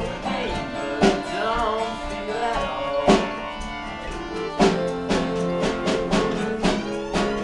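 Live acoustic folk band playing: a fiddle melody over strummed acoustic guitars, with sharp percussive hits about a second in, near the middle, and again a little later.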